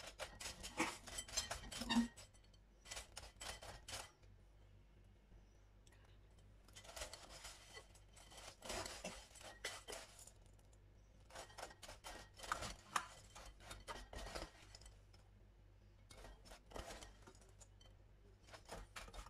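A metal spoon scrapes and clinks against a glass bowl as it tosses crisp fried thenkuzhal pieces in jaggery syrup. The sound is faint and comes in short bouts of clicking, with pauses between them.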